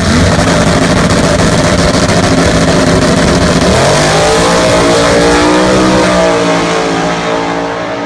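Drag-racing car's engine held at high, steady revs on the starting line. About four seconds in it launches: the engine note dips, then climbs as it pulls away down the strip, and it fades near the end.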